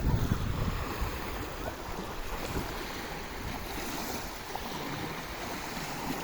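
Sea waves washing on the shore, with wind rumbling on the microphone. The rumble is heaviest in the first half-second, then settles into a steady hiss.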